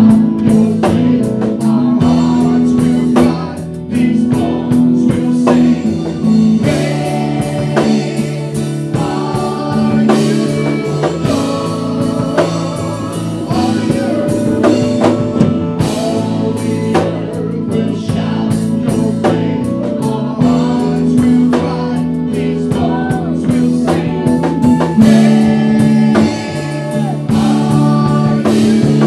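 Contemporary worship song: singing over a band with drum kit and guitar, at a steady beat.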